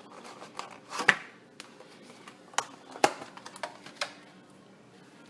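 A few scattered sharp clicks and taps from kitchen handling as the cook works the raw chicken and seasoning on the counter, the loudest about a second in and about three seconds in, over a faint steady hum.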